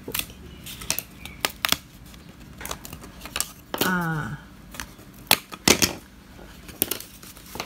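Thin laser-cut plywood puzzle pieces clicking and snapping as they are pressed out of their sheet: about a dozen sharp, irregular clicks. A short vocal sound falling in pitch comes about four seconds in.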